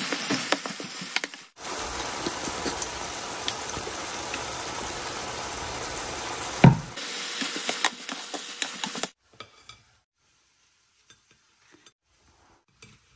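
Tomato sauce sizzling and bubbling in a frying pan, stirred with a spoon, with scattered clicks and one sharp loud knock partway through. About nine seconds in the sizzling stops, leaving only a few faint light taps.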